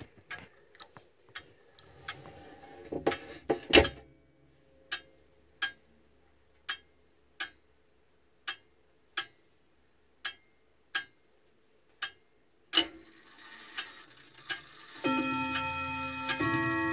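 Pendulum longcase clock ticking, the ticks coming in an uneven tick-tock with short and long gaps alternating, after a few seconds of clicks and rustle. About thirteen seconds in there is a loud click and a rising mechanical whir, and near the end the clock starts chiming, several tones ringing together.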